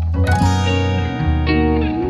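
Background music of plucked guitar notes ringing out, with fresh notes struck about a quarter second in and again near the middle.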